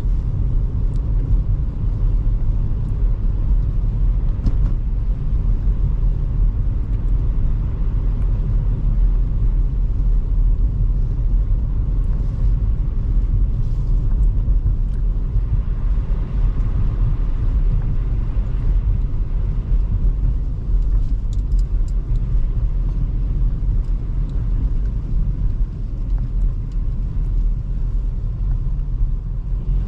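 A 2005 Toyota Highlander driving at a steady pace, its 3.3-litre V6 and tyre noise making a continuous low rumble.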